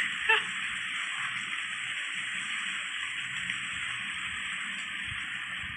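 A steady, even hiss with no rhythm or change. A brief vocal sound comes about a third of a second in.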